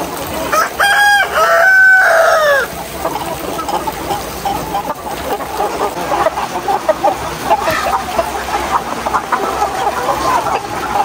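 A rooster crows once about a second in, the loudest sound here, its call ending in a falling note. Chickens keep clucking all through.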